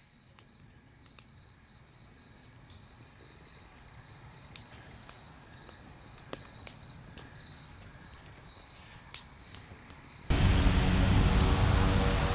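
Crickets chirping faintly in the evening, a steady high trill with a few soft clicks over it. About ten seconds in, a much louder, steady sound cuts in abruptly.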